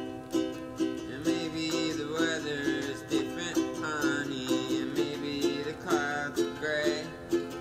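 Background music: plucked strings in a steady rhythm, with a sliding melody line coming in about a second in.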